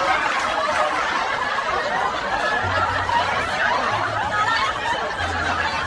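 Several people laughing and chuckling together.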